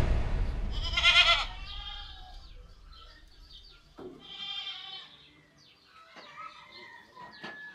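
Goats bleating twice, a wavering call about a second in and another about four seconds in, with a few faint knocks between. A deep boom dies away at the start.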